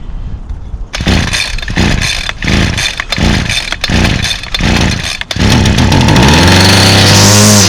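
Homelite two-stroke string trimmer engine catching on starter fluid about a second in and surging unevenly in rough pulses. It then runs steadily and revs up near the end, running only on the fluid because its fuel lines are broken.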